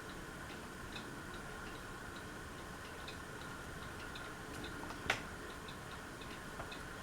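Quorum hugger ceiling fan running on medium speed: a steady hum with a light tick about twice a second, and one sharper click about five seconds in.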